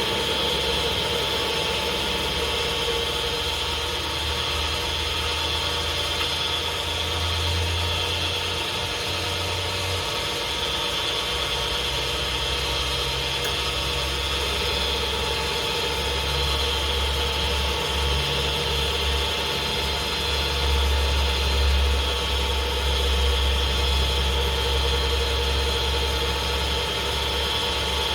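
Steady running of a machine motor, a lathe, with a low hum that drops out briefly about ten seconds in and returns, stronger near the end, over a steady higher whine.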